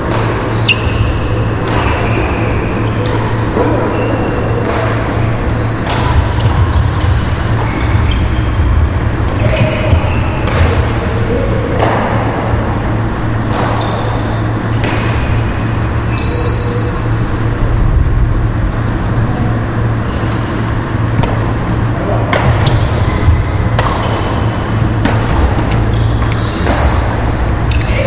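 Badminton rally: rackets strike the shuttlecock in sharp clicks about every second, with a lull in the middle, and athletic shoes give short squeaks on the wooden court. A steady low hum runs under it all.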